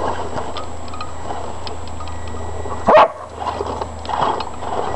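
A dog barks once, sharply, about three seconds in, over a steady low hum and scattered light clicks.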